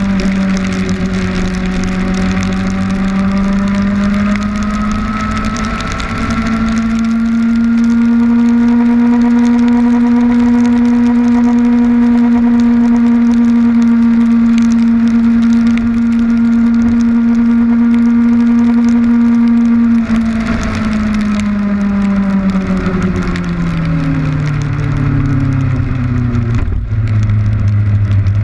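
Kawasaki Ninja motorcycle engine running at speed in the rain: its pitch climbs a little over the first several seconds, holds steady, then falls away over a few seconds after about twenty seconds in as the bike slows. Wind and rain hitting the camera rush underneath.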